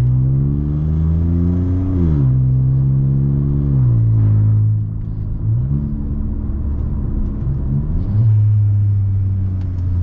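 Volkswagen T-Cross 1.0 TSI three-cylinder turbo engine running loud through an exhaust left open after the catalytic converter, with the intermediate muffler disconnected. The revs climb for about two seconds and drop sharply, then climb and settle again twice.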